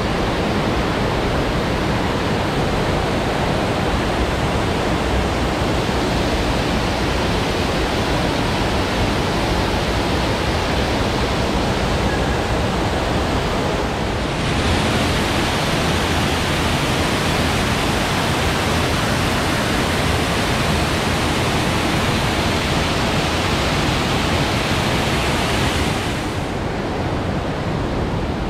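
Steady rushing of falling water from an indoor waterfall feature. It grows brighter and hissier about halfway through and softens a little near the end.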